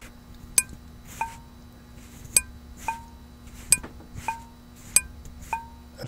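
Large 6-amp glass magnetic reed switch clicking as a magnet is brought to it and taken away. Its contacts snap shut and spring open four times over: each sharp click is followed about half a second later by a softer click with a short ringing ping. A really nice little sound.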